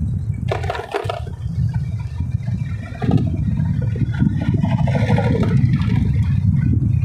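Wind buffeting the microphone of a moving motorcycle, a heavy, steady rumble over the engine and road noise, with a brief rushing swell about a second in.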